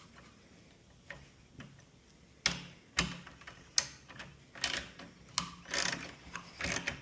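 A run of sharp clicks and ticks, about one a second, from hand tools and plastic parts as the air-vent bolts are put back in on the radio fascia.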